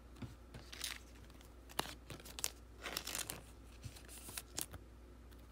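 Football trading cards being handled and flipped through by hand: short rustles and light clicks of cardstock sliding over cardstock, coming in a scattered series of small bursts.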